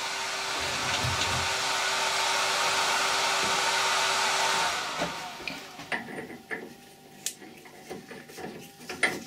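A steady machine whir with a faint hum, which winds down and stops about five seconds in. It is followed by scattered metallic clicks and scrapes as a steel nut is tried on the freshly cut M20 × 2.5 metric thread on the bar in the lathe chuck.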